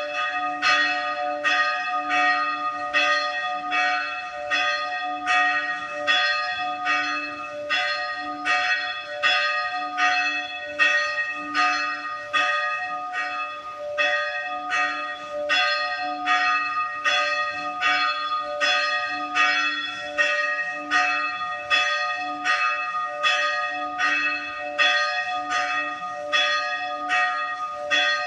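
Church bell rung in rapid, even strokes, about two a second, each stroke ringing on so that the bell's hum carries between strikes.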